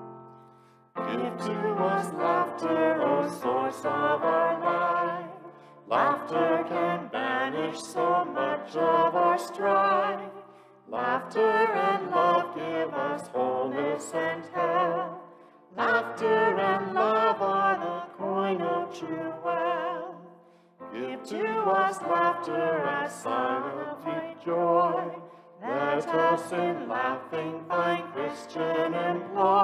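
Voices singing a hymn, phrase by phrase, each line lasting about five seconds with a short breath between lines.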